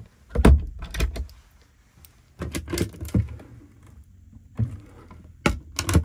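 Wooden cabin locker doors being opened and shut by hand, with the clicks of their push-button latches and the knocks of the doors closing, in several quick groups.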